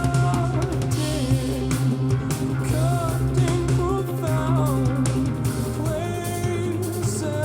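Rock music with singing over guitar, bass and drums, played back through a JBL LSR305 studio monitor.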